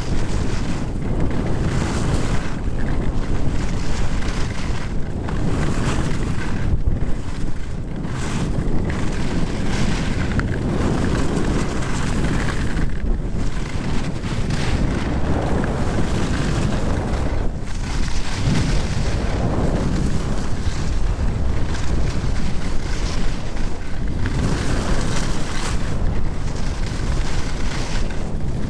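Loud wind buffeting the camera microphone during a fast downhill ski run, with the hiss of skis sliding over snow swelling and fading through the turns.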